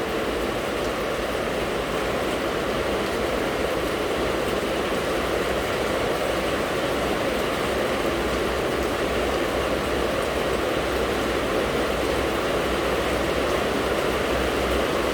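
Steady heavy rain: an even rushing hiss with a low rumble underneath.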